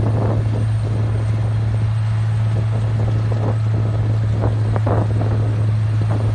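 Pavement milling machine running: a steady, loud low hum with irregular rough, grinding noise on top of it.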